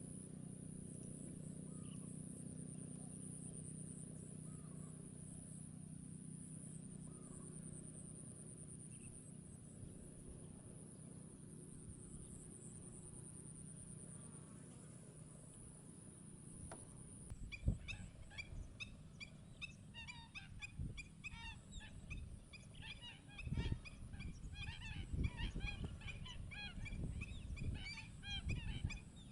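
A steady, high-pitched pulsing buzz over a low hum. A little past halfway the sound changes suddenly to a flock of wetland birds calling, many short calls overlapping.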